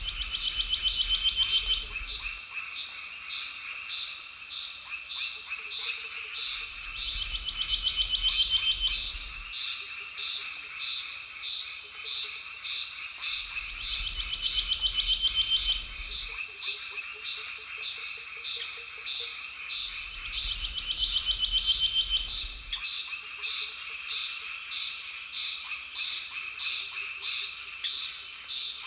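Chorus of frogs and insects: a steady high-pitched insect trill under rhythmic pulsed calls about twice a second. Every six or seven seconds a louder trill lasting about two seconds rises over it, with a low rumble underneath.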